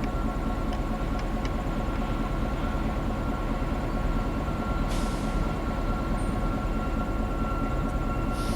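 EMD GP9 diesel locomotive with its 16-cylinder 567 engine running steadily, with a short hiss of air about five seconds in and another near the end.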